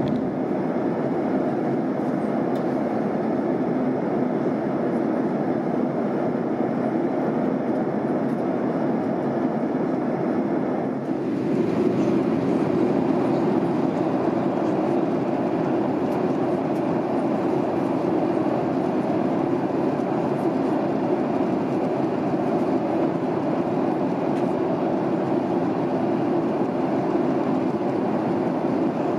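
Steady rumbling cabin noise of a jet airliner in cruise, engine and airflow noise heard from inside the cabin. The sound briefly dips and shifts slightly in tone about eleven seconds in.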